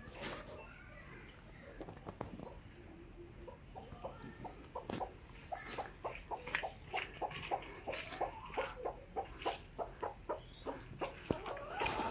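Hens clucking. Quiet at first, then from about five seconds in a steady run of short clucks, about three a second.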